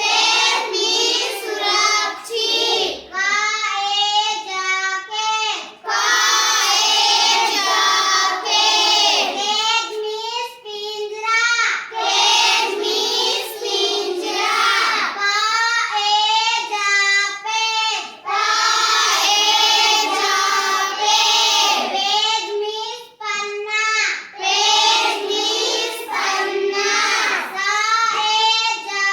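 A child singing a song in long, wavering notes.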